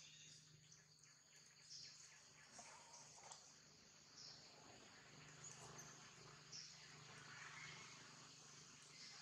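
Faint outdoor insect chorus, a steady high-pitched drone, with short high chirps every second or so over a faint low hum.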